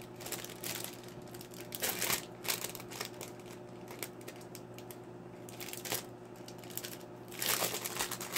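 Plastic packaging crinkling in short, scattered rustles as it is handled, growing louder and denser near the end, over a faint steady hum.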